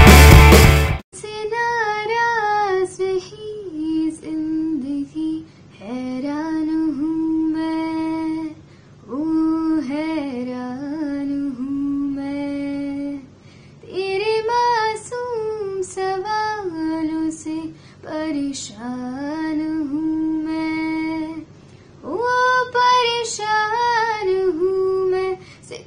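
A woman singing a Hindi song solo without accompaniment, in phrases of a few seconds with short pauses for breath between them. About a second in, a loud rock-music intro cuts off just before the singing starts.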